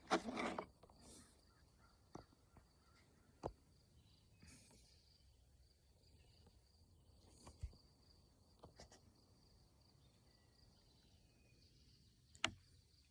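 Near silence broken by a few scattered faint clicks and taps, typical of a small plastic fidget toy being handled, with a brief rustle at the very start and a faint steady high tone underneath.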